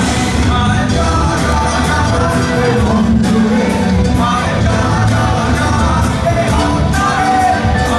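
A rock band playing a Bangla song live: electric guitars, bass, keyboards and drums under a sung lead vocal, through loud hall amplification.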